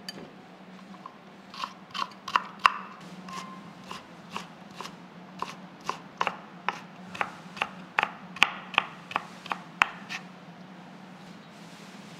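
Kitchen knife chopping onion finely on a wooden cutting board: a run of sharp knocks at an uneven pace, stopping about two seconds before the end.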